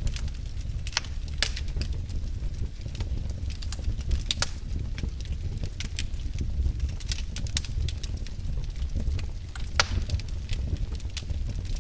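Wood fire crackling in a fireplace: irregular sharp pops and snaps over a low steady rumble, with a louder pop near the end.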